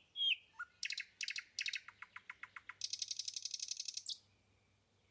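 A bird calling: a few short falling chirps, then a run of sharp high notes, and a fast trill of about ten notes a second that stops abruptly about four seconds in.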